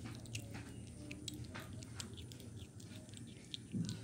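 A kitten chewing and biting pieces of fish, a run of irregular small wet clicks and crunches, over a low steady hum. A slightly louder low sound comes near the end.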